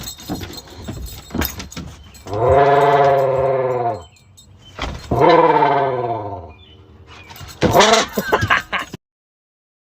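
A man imitating a diesel engine with his voice: three drawn-out revving calls, each rising and then falling in pitch, with clicks and sputters between them. The sound cuts off about nine seconds in.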